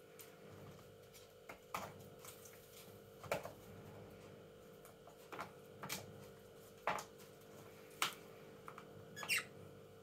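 A parrot's beak tapping and clicking on wooden and wicker toys: about seven sharp, irregular clicks, with a short chirp near the end over a faint steady hum.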